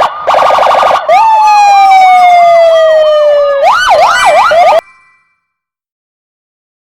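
Electronic police siren sound effect. It starts with a rapid stutter for about a second, then a long, slowly falling tone with a fast yelp warbling over it, then quicker wails, and cuts off suddenly just under five seconds in.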